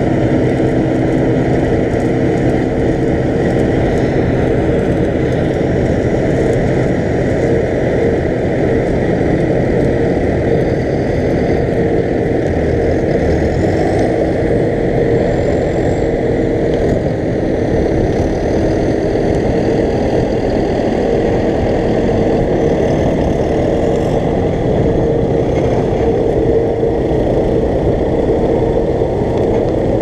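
Diesel engines of a Claas Lexion 460 combine harvester and a John Deere 6420 tractor running steadily under load while harvesting barley, a continuous engine drone over the rough sound of the machinery working.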